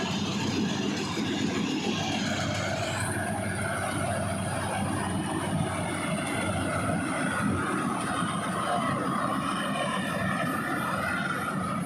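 Fieldking 88 hp combine harvester running steadily, its engine and working parts making a dense, even mechanical noise. A thin, high whine comes in about three seconds in and holds steady.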